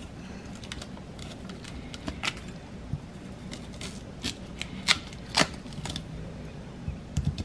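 Chef's knife slicing through peeled cassava root on a wooden cutting board, trimming out the fibrous center core: irregular crisp knife clicks and taps against the board, a few sharper ones around the middle and near the end.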